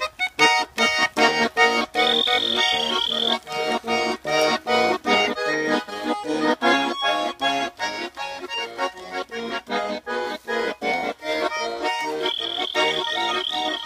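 Button accordion playing an instrumental break between verses: a lively melody over alternating bass notes and chords in a steady, even rhythm.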